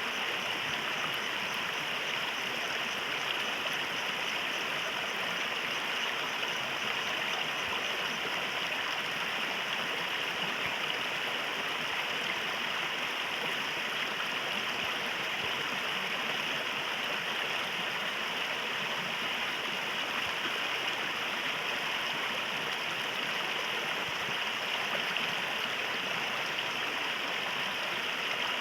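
A river stream flowing steadily, an even rush of running water with no breaks.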